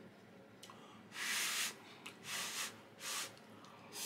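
A man breathing noisily through his nose: three short hissing breaths about a second apart, the first the longest, with a fourth starting near the end.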